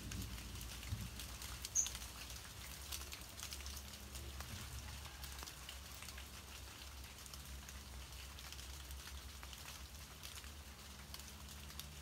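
Light rain pattering and dripping on the broad leaves around the nest, as scattered irregular drop ticks, with one sharper high tick about two seconds in. A faint steady low hum runs underneath.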